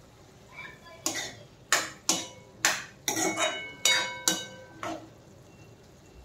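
Steel spoon clinking and scraping against a steel kadhai while stirring cubed pumpkin, about nine ringing metal knocks over four seconds.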